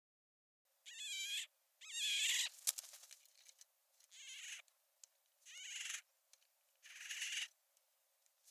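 An animal calling five times, each call short and pitched and about a second and a half apart, with a few sharp clicks after the second call.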